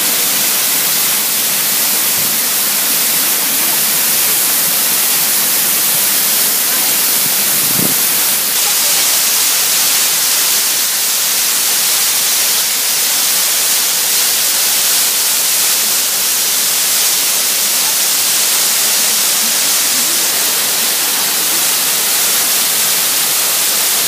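Fuentetoba waterfall, source of the Río Golmayo, pouring down a rock face and heard close up at its base: a loud, steady rushing hiss.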